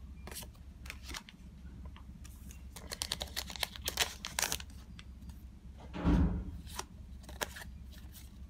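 A foil trading-card booster pack crinkling and being torn open by hand, with the cards clicking and sliding against each other, the crackling densest a few seconds in. About six seconds in there is a brief, louder, dull rush.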